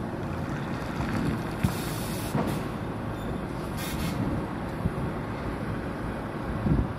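Heavy truck's diesel engine running steadily, with two short hisses of compressed air and a few sharp knocks, as when a tractor unit couples to a trailer.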